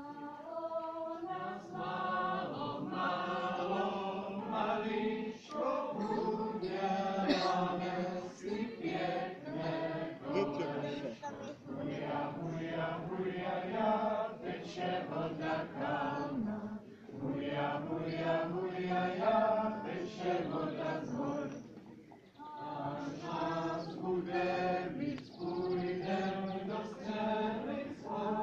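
A group of voices singing a Czech folk song together, with a brief pause about 22 seconds in before the singing resumes.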